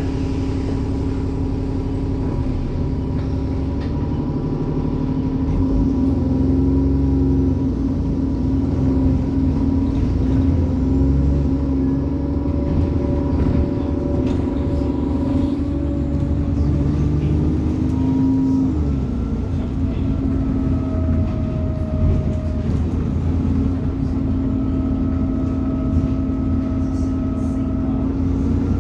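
ADL Enviro 400 double-decker bus's diesel engine running in service, a steady drone with turbo whine. Its tones shift in pitch about two-thirds of the way through, after which higher whining tones come and go.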